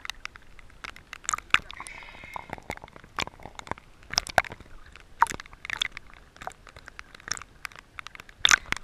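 Water slapping and splashing against a waterproof action-camera housing bobbing at the surface, heard as irregular sharp clicks and crackles.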